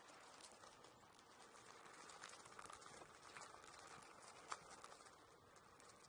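Near silence with a faint rolling hiss and scattered light clicks from a Onewheel Pint's tyre rolling along a paved path. One sharper tick comes about four and a half seconds in.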